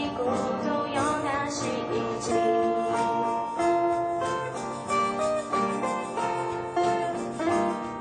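Live acoustic band playing: two acoustic guitars carrying a melody over a steady cajon beat.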